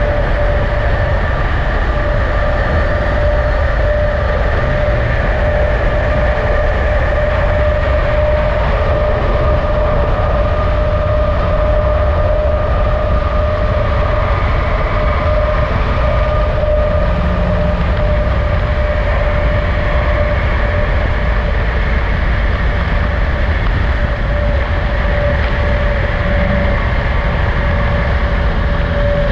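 Steady road noise of a vehicle moving at speed: a constant low rumble with a steady mid-pitched whine over it.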